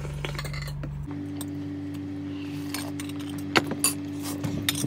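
Spoon and fork clinking against ceramic plates and a soup bowl, with two sharper clinks a little past three and a half seconds in. A steady background hum runs underneath.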